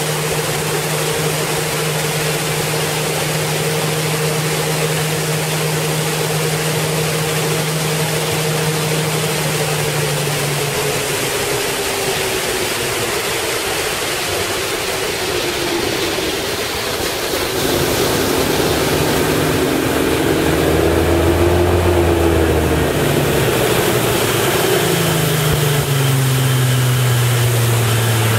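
Bass boat's outboard motor running under way, with a steady rush of wind and water. The engine note sags lower a little before halfway, shifts again later, and falls once more near the end as the boat slows.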